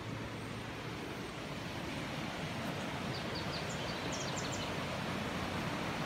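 Steady outdoor rushing noise that grows slightly louder, with a quick run of short high chirps a little past halfway.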